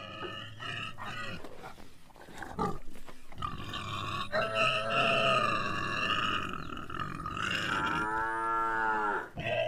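Cattle mooing: a long drawn-out call through the middle, then a shorter call that bends in pitch near the end.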